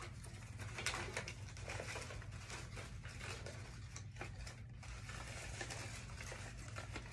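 Paper and cardboard puppet props being handled and shuffled inside a cardboard box: soft rustling with scattered small clicks and taps, over a faint steady low hum.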